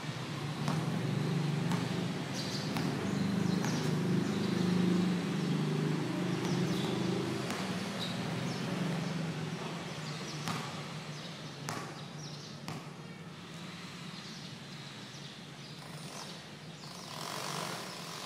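Low engine hum of a motor vehicle, loudest in the first half and fading away after, with a few sharp knocks of a basketball bouncing on the concrete court.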